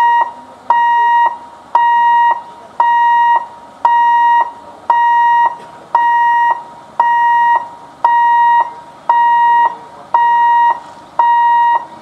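Railway level-crossing warning alarm sounding: a loud, high-pitched electronic beep about once a second, each beep about half a second long with a click as it switches on and off.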